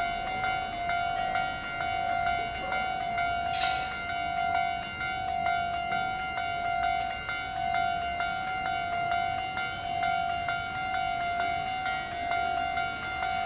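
Japanese railroad crossing warning bell ringing steadily, a quick, even run of dings on one pitch. A short hiss cuts in once about three and a half seconds in.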